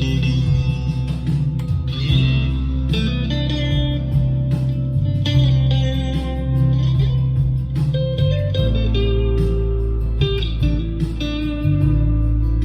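Chapman ML1 electric guitar played through a Blackstar ID:Core amp along with a backing track, single notes and phrases over steady low bass notes and a beat.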